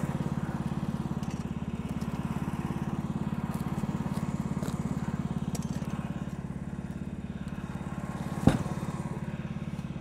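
Norwood LM29 portable bandsaw sawmill's engine idling with a steady, low, even throb. A single sharp knock comes about eight and a half seconds in.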